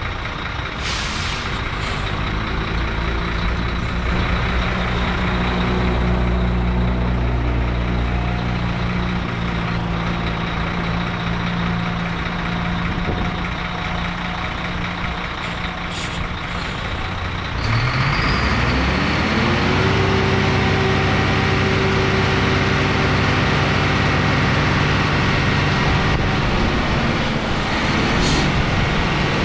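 2006 DAF LF75.360 dump truck's diesel engine idling, with short hisses of air about a second in and again about halfway. About two-thirds of the way through, the engine revs up and holds at a higher speed while the hydraulic tipper body is raised.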